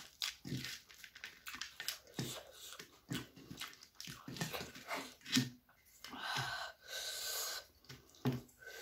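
Crisp puffed rice (muri) being mixed by hand in a steel plate and chewed: a run of quick crackles and crunches with soft low thuds. About six seconds in there is a longer rustling hiss of a second or so.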